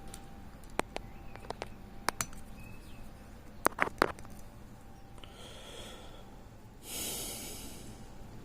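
Lock pick working the discs of a disc brake lock under tension: scattered sharp metallic clicks, with a quick cluster just before the middle. Near the end come two soft breaths, the second longer and louder.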